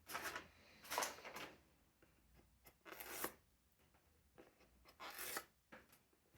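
Packaging being handled and torn open: four short rasping swishes, each under half a second, with a few small ticks between them.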